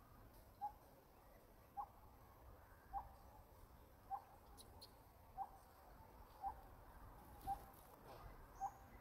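A bird calling one short, mid-pitched note over and over at an even pace, about once a second, eight calls in all, against a faint background hiss.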